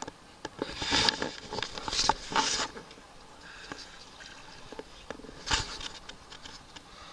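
Short splashes and sloshing of water as a bottlenose dolphin moves at the surface close by: a few brief bursts, the clearest about a second in, around two seconds, and about five and a half seconds in.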